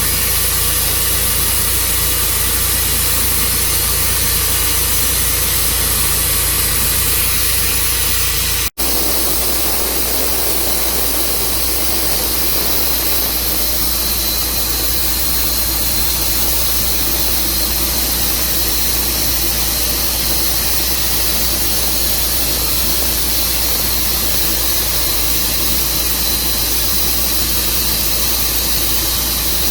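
Portable bandsaw mill running steadily, its engine droning under a loud hiss of the blade, with a split-second break in the sound about a third of the way in.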